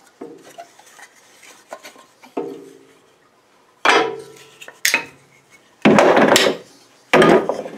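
Thick cut-out wooden pieces knocking together and being set down on a scroll saw's metal table: a few faint knocks early, then several sharp clacks with a short ring, the loudest about six seconds in.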